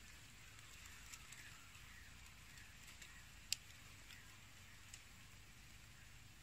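Near silence: faint outdoor ambience with a thin, steady high hiss. There is a single sharp click about three and a half seconds in, and a few fainter ticks.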